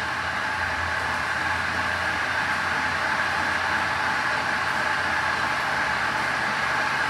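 Magic Wand Nexus touch-free automatic car wash running through its clear coat protectant wax stage: a steady hiss of spraying and machine noise, with a low hum that eases off about five seconds in.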